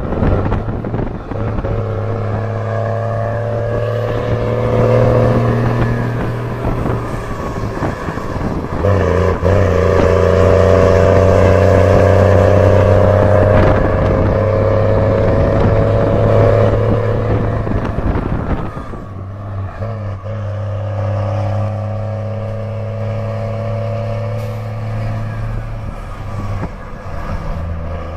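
Mercedes-Benz 1620 truck's diesel engine running under load with a deep, steady drone that rises slowly in pitch, breaking twice for gear changes, about 8 and 19 seconds in.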